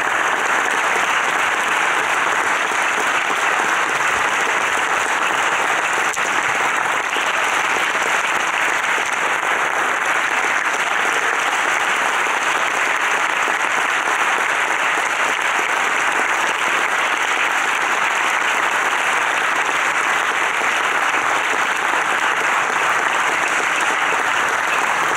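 Theatre audience applauding, a steady, unbroken clapping.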